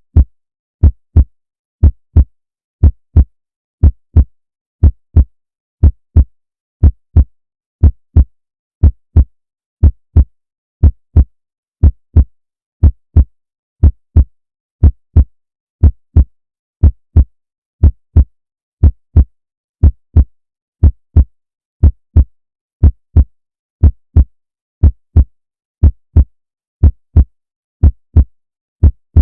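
Heartbeat: a steady lub-dub double thump about once a second, low in pitch, with quiet gaps between beats.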